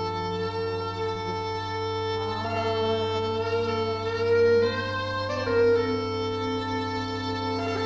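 Droning music of long held tones over a steady low hum, organ-like; about halfway through, higher tones slide up and down before settling.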